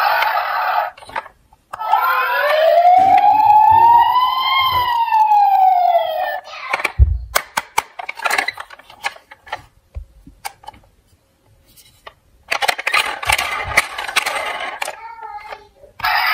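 Toy police car's electronic sound module playing a siren: one wail that rises and falls over about four seconds, after a short burst of hissy noise. A thump follows, then scattered plastic clicks from handling the toy and pressing its roof buttons, with another burst of the hissy noise near the end.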